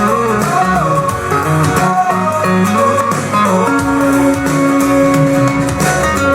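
Instrumental passage of a pop song: guitar over a steady beat, with no singing.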